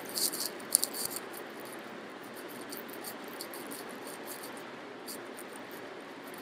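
Computer keyboard keys clicking in a short run of typing near the start, then a single click or two later on, over a steady faint hiss.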